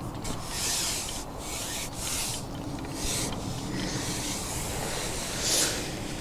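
Irregular rustling and rubbing, a hissy scrape every half second to a second over a steady low rumble, with one louder scrape near the end.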